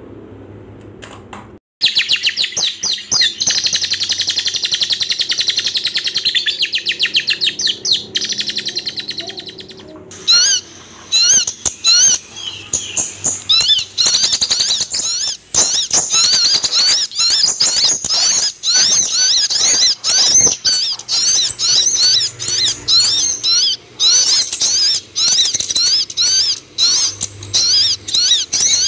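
Kolibri ninja sunbird song: a dense, very fast high trill starting about two seconds in and lasting about eight seconds, then a long run of rapid, sharply rising and falling high chirps.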